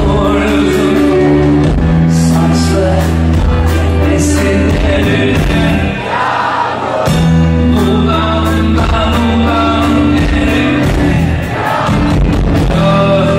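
Live rock band playing, with a male lead vocal over drums, electric guitar and bass. The bass and drums drop away for about a second near the middle, then come back in.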